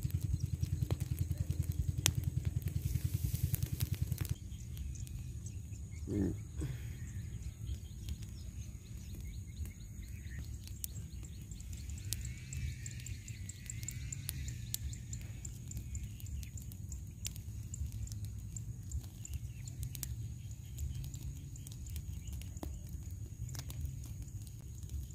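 Outdoor rural ambience: a steady low rumble with a few faint bird-like chirps. For the first four seconds a rapid low throbbing sits under it, then stops abruptly, and a short gliding call comes about six seconds in.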